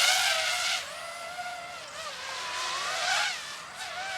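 DJI FPV drone's motors and propellers whining in sport mode, the pitch rising and falling as it speeds through the air. Loudest at the start, it drops back about a second in and swells again around three seconds.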